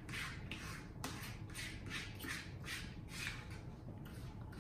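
Eating sounds: soft chewing and mouth noises repeating about three times a second, with forks working on plates and one sharp click about a second in.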